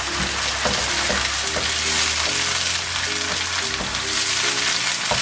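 Onions and tomato sauce sizzling in a nonstick frying pan, stirred with a wooden spoon that scrapes and knocks lightly against the pan.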